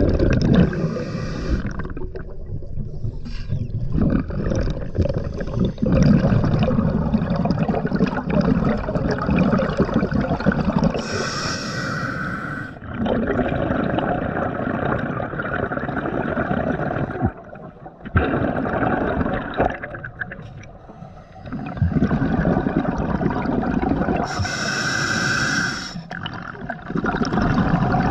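Scuba diver breathing through a regulator underwater: two short hissing inhalations about a dozen seconds apart, each followed by a long rumbling, gurgling rush of exhaust bubbles.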